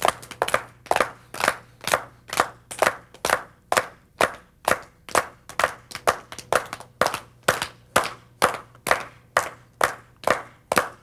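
A group of young children and an adult clapping their hands loudly together in a steady beat, a little over two claps a second.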